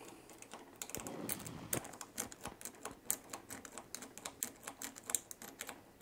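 A steel lock pick working the pin stacks in a Master Lock M5 Magnum padlock's keyway makes a fast, irregular run of small light clicks and scrapes, several a second, as the pins are picked toward setting.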